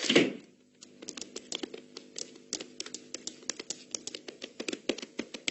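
Cartoon soundtrack: a short falling swoosh at the start, then rapid, irregular light clicks, like typing, over faint steady tones.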